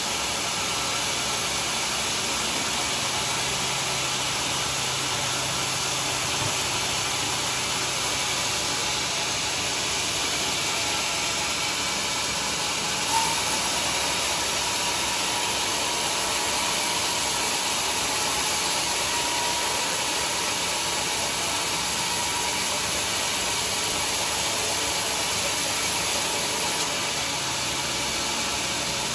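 Sawmill machinery running with a steady rushing noise, a faint low hum in places and a single small click about halfway through.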